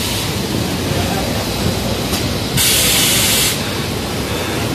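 Shirt armhole press machine letting out a loud hiss for about a second, a little past halfway through, over the steady din of garment-factory pressing machinery.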